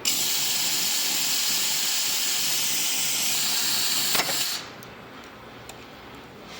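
Compressed air hissing loudly and steadily from an air blow gun, starting abruptly and cutting off after about four and a half seconds, with a click just before it stops; faint clicks follow.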